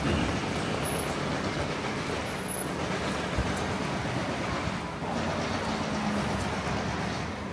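Street traffic on a rain-wet road: a steady wash of passing engine and tyre noise, with a faint low engine hum from a nearby vehicle about six seconds in.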